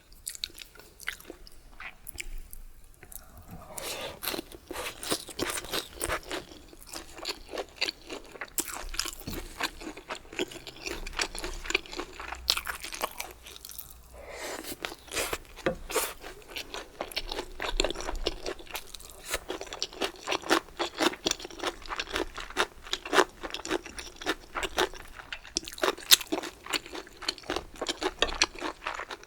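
Close-miked chewing with quick, crisp crunches, typical of crunchy bamboo shoots being eaten. It is quieter for the first few seconds, then the crunching runs on densely, with a short pause about halfway through.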